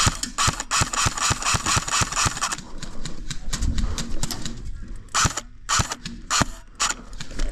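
Airsoft electric guns firing: a fast run of shots over the first two and a half seconds or so, then scattered single shots and short bursts.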